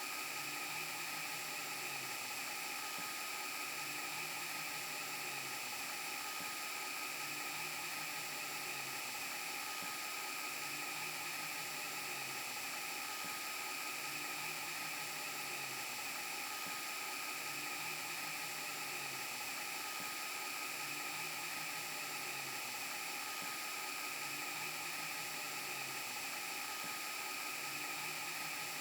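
VHS tape rewind glitch sound effect: a steady hiss with high whining tones, and a low hum that swells and fades about every two seconds.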